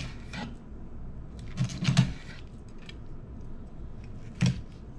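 Chef's knife filleting a sea robin, cutting along the rib bones and knocking and scraping on the cutting board: a few sharp clicks, a cluster of them about two seconds in and another near the end.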